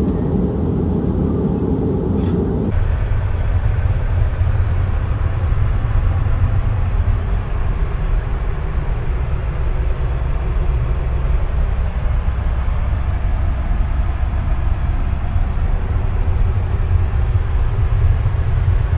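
Airbus A319 cabin noise in flight: a steady low rumble that changes character abruptly about three seconds in.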